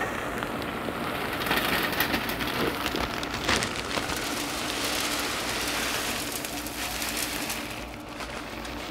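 Hardwood smoking pellets pouring from a bag into a Traeger pellet grill's metal hopper: a dense rattle of many small clicks as the pellets land on the pile, easing off slightly near the end.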